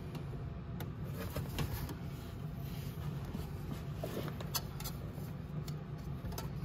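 Scattered light clicks and scrapes of hand work on motorcycle exhaust hardware, over a steady low hum.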